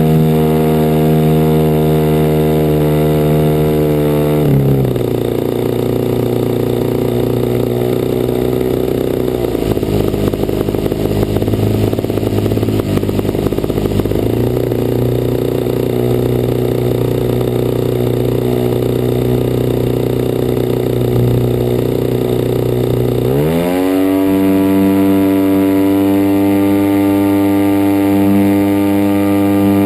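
DLE 55cc single-cylinder two-stroke petrol engine of a radio-controlled Cessna 182 scale model running: throttled back about four seconds in from a higher steady note to a lower, rougher one, then opened up again a little over twenty seconds in to a steady higher note.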